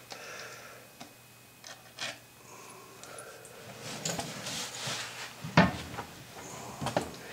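Scattered knocks, scrapes and rubbing as a toilet is worked loose and handled during removal, with one sharper knock about five and a half seconds in.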